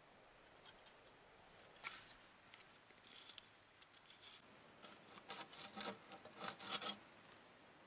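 Faint handling sounds of a wooden-framed bow saw: small scrapes and clicks as its cord tensioner is twisted tight. A quicker run of scratchy scrapes follows about five seconds in, as the blade is set against a log.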